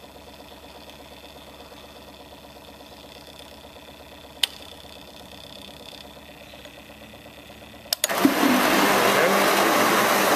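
Milk-tank wash box's sequence timer motor running with a faint steady hum, with one sharp click about halfway through. Near the end a relay clicks twice and the wash pump motor starts, running with a loud, even rushing noise as the timer moves on to the next wash stage.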